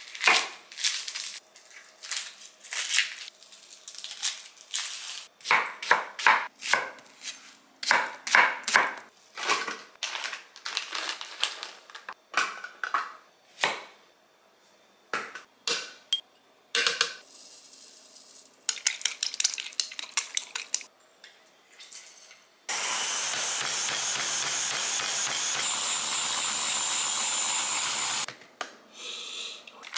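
A chef's knife chopping an onion and ginger on a wooden cutting board, in uneven runs of sharp knocks with short pauses. About 23 s in, a small food processor starts blending the jerk chicken marinade, runs steadily for about five seconds, then cuts off.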